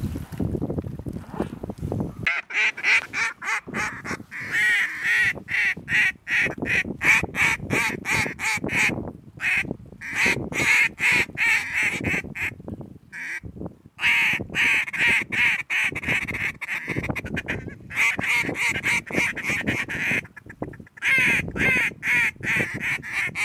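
Duck calls blown in long runs of quacks, about three to four a second, with a few short pauses. Wind buffets the microphone for the first couple of seconds before the calling starts.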